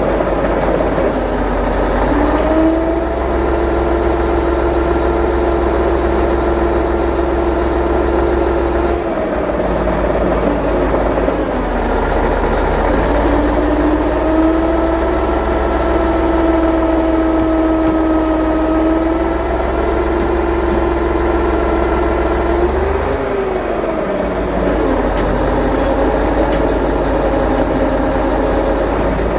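Motor vehicle engine running steadily, its pitch rising and falling several times as it revs up and eases off: up about two seconds in, down near nine seconds, up again near thirteen, with a dip and rise near the end.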